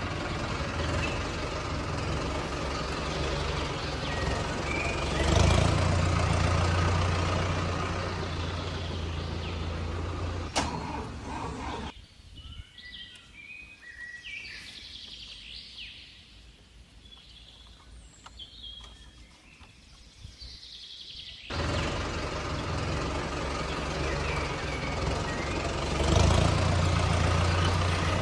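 Toy farm tractor running, with a steady low engine-like hum. It stops about twelve seconds in, leaving birds chirping, and starts again about nine seconds later.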